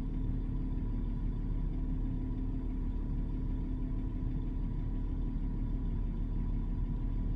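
Steady low rumble of a Toyota 4Runner idling, heard inside the cabin, with a constant hum running through it.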